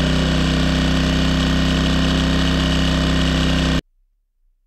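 Firman W2000i inverter generator's small four-stroke engine running steadily just after being started. The sound cuts off suddenly near the end.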